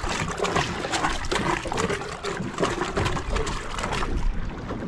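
Water sloshing and trickling against the hull of a small boat, with many small irregular ticks.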